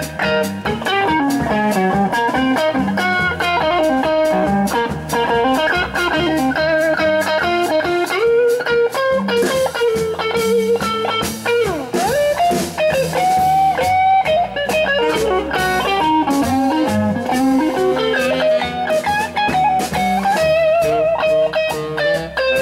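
Live blues band in an instrumental break: an electric guitar leads with bending, sliding notes over upright bass and drum kit.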